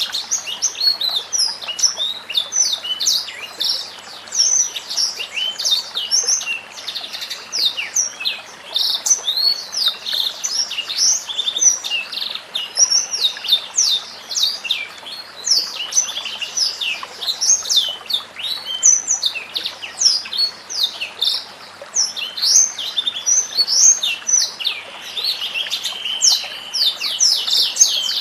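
White-rumped shama (murai batu) song: a fast, dense, unbroken run of high chirps and whistles with quick downward sweeps.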